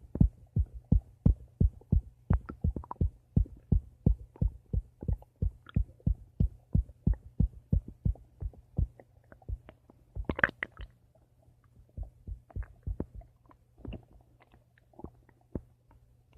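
Stomach gurgling as a quick series of short low pops, about three a second, over a faint steady hum. A louder, sharper gurgle comes about ten seconds in, and the pops then come more sparsely.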